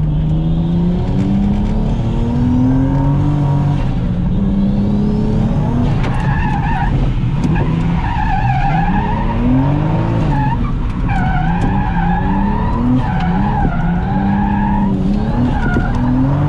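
Toyota JZX100 Mark II's turbocharged straight-six revving up and down through a drift, heard from inside the car. Tyre squeal comes in from about six seconds in.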